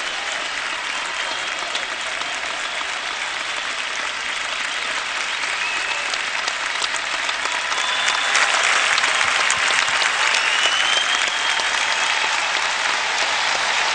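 Large crowd applauding steadily, growing louder about eight seconds in.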